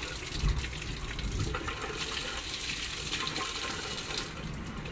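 Water running steadily from a tap, dying down near the end.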